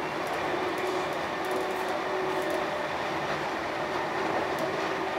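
Class 319 electric multiple unit running at speed, heard from inside the carriage: a steady rumble of wheels on rail with a faint steady hum.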